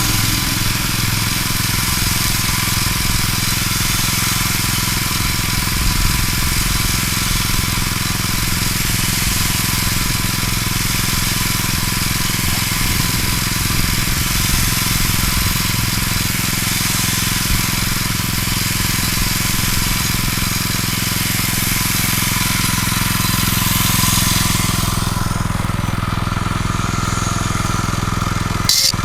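Steady engine-like drone mixed with constant rushing air noise, unbroken for the whole stretch, with a brief dropout near the end.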